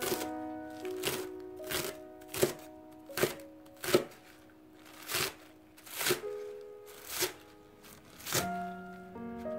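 Chef's knife chopping green onions on a plastic cutting board: separate knife strokes about once a second, over background music.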